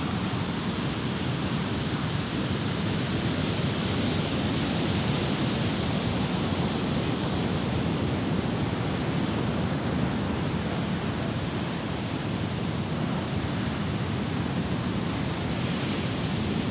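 Ocean surf on the shore, a steady rushing noise.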